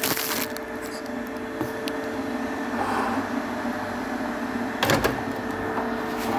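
Steady hum of a running kitchen appliance, with a single sharp knock about five seconds in.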